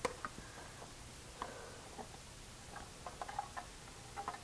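Diced raw potatoes poured and shaken from a plastic container into a slow cooker crock: a faint, sparse scatter of light taps and clicks, more of them about three seconds in.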